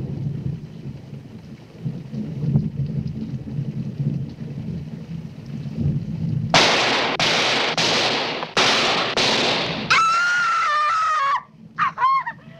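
Movie soundtrack: a low rumble, then five harsh blasts in quick succession, gunshots in the film's climax. They are followed by a woman's long scream that slides downward, and short shrill screaming cries.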